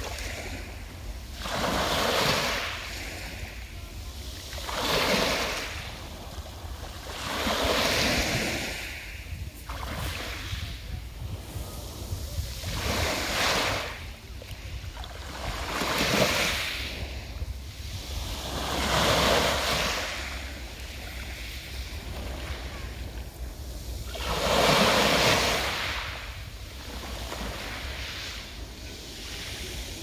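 Small waves breaking on a pebble beach and washing back over the stones. Each wash swells and fades about every three seconds.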